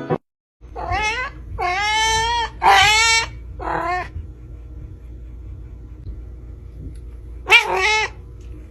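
A cat meowing repeatedly: four meows in the first few seconds, then two more in quick succession near the end, over a low steady hum.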